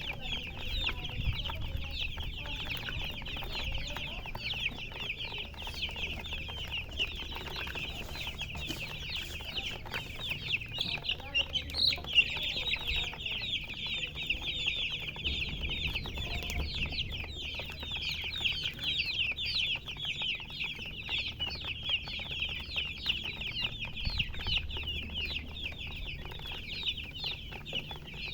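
A crowd of baby chicks peeping together: a dense, unbroken chorus of short, high, falling chirps overlapping one another.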